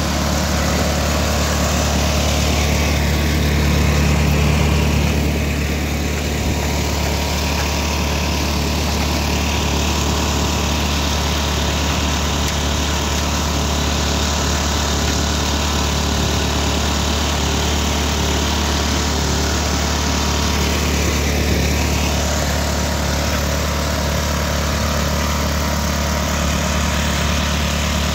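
Engine-driven threshing machine running steadily as it crushes finger millet, with a constant low engine hum under a noisy rattle; it swells slightly about four seconds in.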